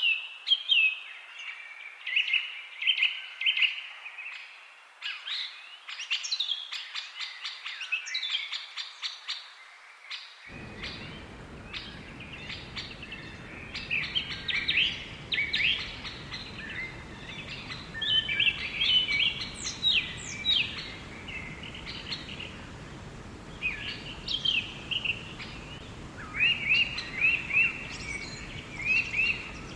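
Several small songbirds chirping and trilling, quick runs of repeated notes overlapping one another. About ten seconds in, a low, even background rumble starts abruptly under the birdsong.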